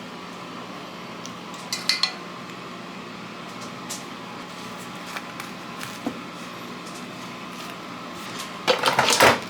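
Dishes and cutlery clattering: a couple of sharp clinks about two seconds in, a few light ticks, then a short burst of clattering near the end, over a steady hum.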